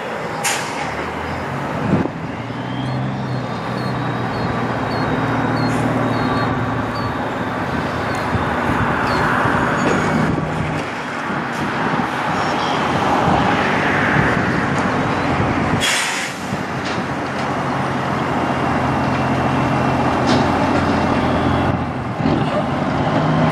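Diesel engine of a Kenworth semi tractor pulling a livestock trailer, running steadily at low speed as the rig rolls slowly in. Two short, sharp hisses of air from the air brakes, one about half a second in and one about two-thirds of the way through.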